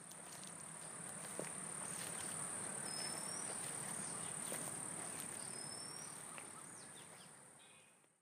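Outdoor nature ambience: insects keep up a steady high-pitched drone, with a few short rising bird chirps over it. The ambience swells and then fades out near the end.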